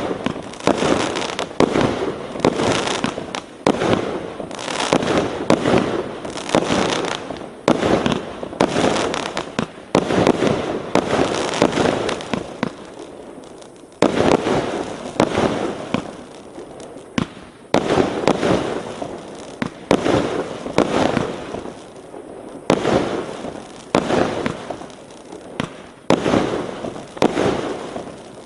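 1-inch multi-shot consumer fireworks cake firing shot after shot in quick succession, each launch followed by aerial bursts and their echoing tails.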